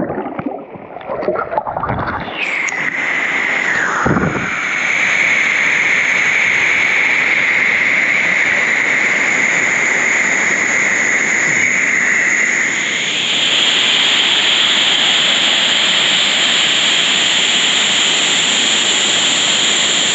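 Splashing as a person plunges into a cold rock pool below a small waterfall, followed by loud, steady rushing water. The rush shifts a little higher in pitch about 13 seconds in.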